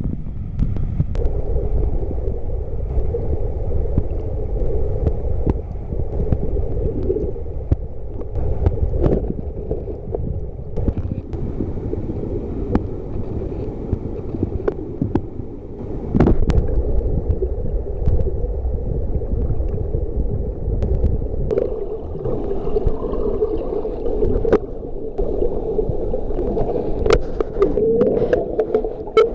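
Underwater sound picked up by a submerged camera: a steady low rumble with a droning hum, and scattered sharp clicks.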